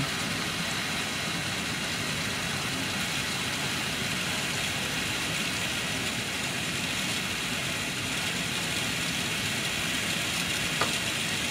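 Steady mechanical rushing hiss of running lab equipment, with one faint click near the end.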